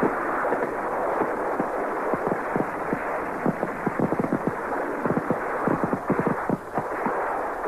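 Battle gunfire on a film soundtrack: a dense, rapid crackle of shots over a steady noise, thickest about three to six seconds in. The sound is dull and muffled, as from an old tape copy.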